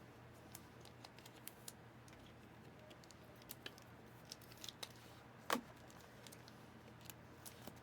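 Sparse, faint clicks and light rustles of trading cards and their packaging being handled, with one louder crackle about five and a half seconds in.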